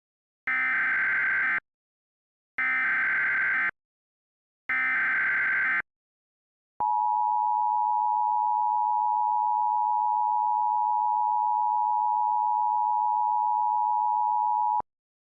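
Emergency Alert System tones: three short bursts of SAME header data, each a warbling digital screech about a second long with a second's gap between, then the EAS attention signal, a steady two-tone beep held for about eight seconds that cuts off suddenly. The tones mark the start of a new emergency alert.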